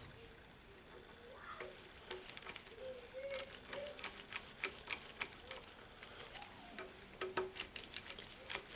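Light, irregular metallic clicks and taps as the small internal parts of a ratchet head (pawl, springs) are handled and fitted back into the greased head. The clicks start about two seconds in and come thickest in the second half.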